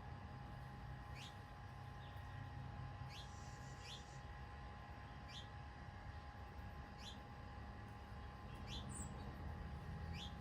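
A bird repeating a short, falling chirp about every one to two seconds, over a steady low background rumble and a faint constant hum.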